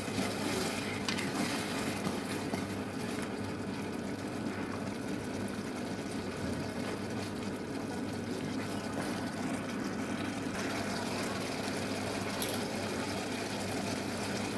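Watery sauce in a nonstick pan heating on a high flame, a steady bubbling hiss as it comes up to the boil.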